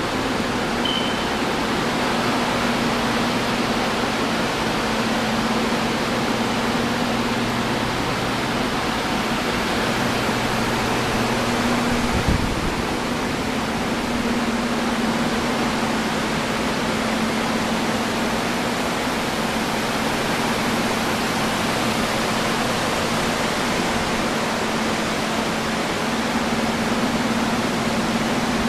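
Water-damage drying fans running steadily: a constant rushing of air with a low motor hum. A brief low thump about twelve seconds in.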